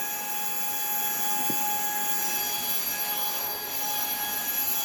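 Puweike cordless stick vacuum running steadily: a motor whine over the hiss of suction airflow.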